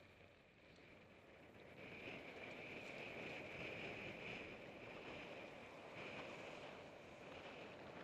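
Faint sound of a mountain bike being ridden over grass and a dirt trail: tyre rolling noise and wind on the microphone, with a steady high-pitched hum that grows louder about two seconds in.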